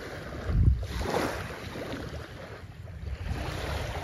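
Small waves lapping and washing onto a sandy shore, swelling and fading, with wind buffeting the microphone; a gust about half a second in is the loudest moment.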